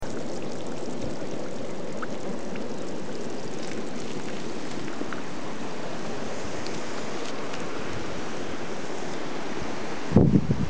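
Carbonated mineral spring water welling up through pebbles and trickling between stones in a shallow pool, a steady watery sound. Near the end, wind starts buffeting the microphone in loud low gusts.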